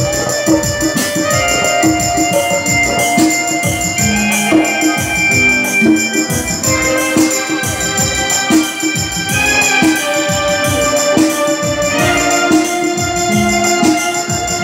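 Loud music: a held, organ-like keyboard melody over a steady, fast drum beat.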